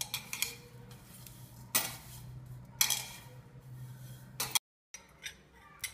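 Spatula scraping and knocking in a pan as sesame seeds are dry-roasted and stirred, a stroke every second or so, over a steady low hum.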